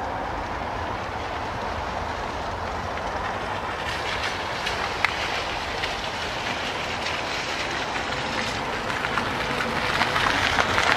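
Car rolling slowly up a wet gravel driveway: steady tyre crunch and engine rumble that grows louder over the last few seconds as it comes closer.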